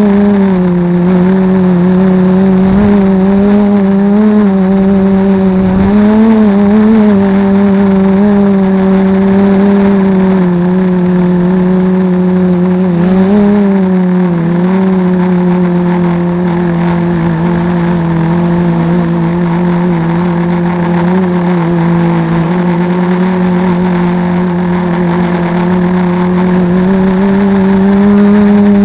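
Armattan Rev2 quadcopter's brushless motors and propellers droning steadily, as picked up by its onboard camera; the pitch wavers up and down slightly with throttle changes.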